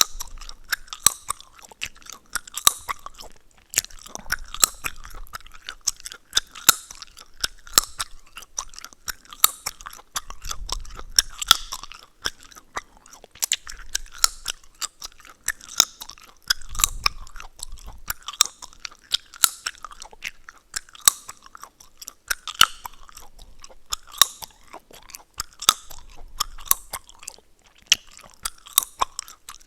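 Close-miked gum chewing: wet smacking and sharp crackling pops from the gum, a few a second.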